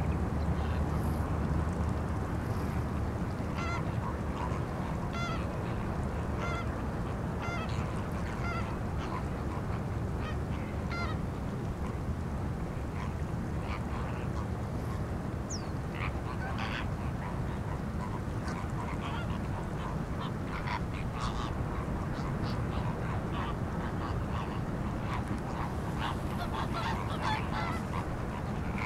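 Greater flamingos calling with short, goose-like honks, repeated about once a second at first and more scattered later, over a steady low rumble.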